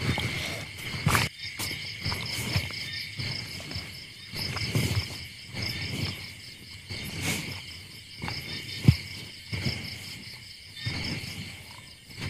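A chorus of crickets chirping steadily in a high, pulsing drone. Over it come scattered soft thumps and rustles, with one sharper tap about nine seconds in.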